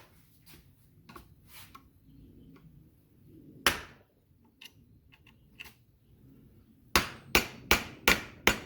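Hammer rapping the metal flange of a mower's old electric PTO clutch to free it after the flange was ground into. There are a few faint knocks, one sharp blow a little before four seconds in, and then a quick run of about six blows, roughly three a second, near the end.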